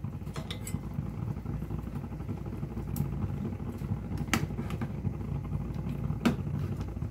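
Pot of pork-rib nilaga soup boiling on the stove, a steady low rumble, nearly boiling over. A few light clicks come through it, the last as a ladle knocks the pot.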